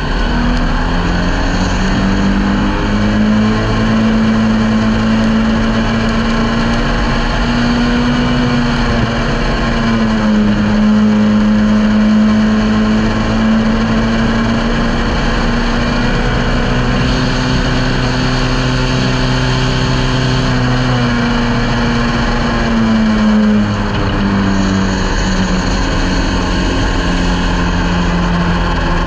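Ministock speedway race car's engine heard from inside the cockpit, running hard at high revs. The engine note holds steady and dips briefly twice, about a third of the way in and again near the end, as the throttle eases.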